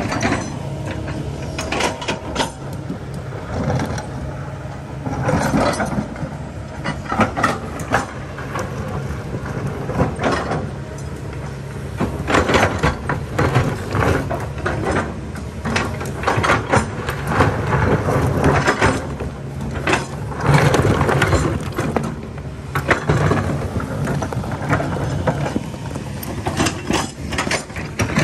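Kobelco excavator's diesel engine running steadily, with repeated irregular clanks and scraping as its steel bucket works against large rocks.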